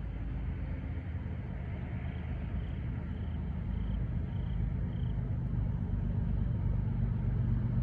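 Low rumble of an approaching CSX freight train's diesel locomotives, slowly growing louder. A faint ding repeats about twice a second for a few seconds midway, from the grade-crossing bell.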